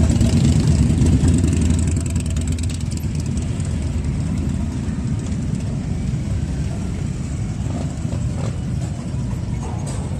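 A vehicle engine running, louder for about the first two seconds and then easing to a steady, lower level.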